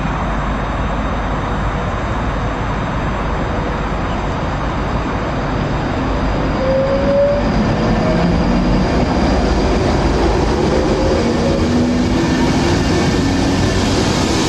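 A Class 221 Super Voyager diesel-electric train running at the platform, a steady rumble with a short rising whine about six seconds in, after which it gets a little louder.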